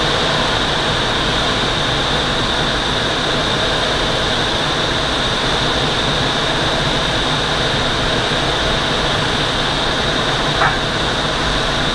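Steady rushing of airflow over the canopy of a Twin Astir glider on final approach, with a steady high whistle over it and no engine. A brief faint chirp comes near the end.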